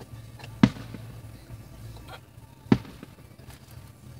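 Aerial firework shells bursting: two sharp booms about two seconds apart, the first about half a second in, with fainter pops between them.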